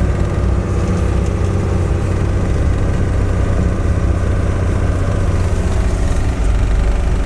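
Bombardier snowcat's diesel engine running steadily as the tracked machine drives through snow, heard from inside the cab. The low drone grows a little louder near the end.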